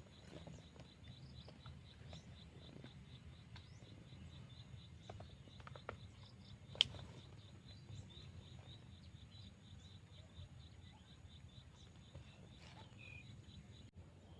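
Faint outdoor ambience: an insect chirping in a steady, rapid pulse over a low background rumble, with one sharp click about seven seconds in.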